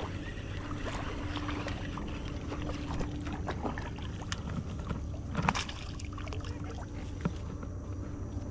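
A hooked fish splashing and thrashing at the water's surface as it is reeled in toward the bank, heard as a run of small splashes and ticks. One louder splash comes about five and a half seconds in, and a sharp tick near the end.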